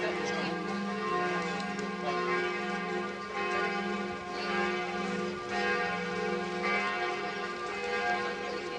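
Notre-Dame de Paris cathedral bells ringing a continuous noon peal. Several bells sound at once, their tones overlapping, with a deep note swelling about once a second as the bells keep striking.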